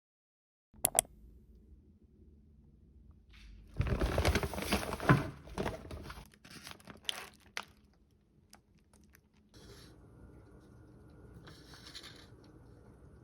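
Household handling sounds: two sharp clicks, then a few seconds of crinkling and tearing with scattered clicks, dying away into a faint steady hum with two short bursts of hiss.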